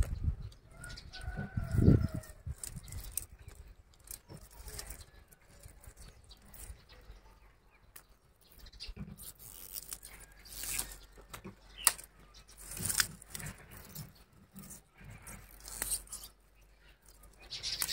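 Scattered clicks and rustles with a low thump about two seconds in, and a short bird call early on.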